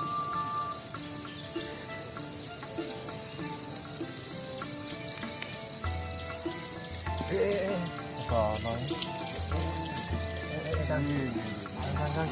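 Insects chirring, a steady high-pitched trill that pulses in rapid runs, with background music that picks up a low beat about six seconds in.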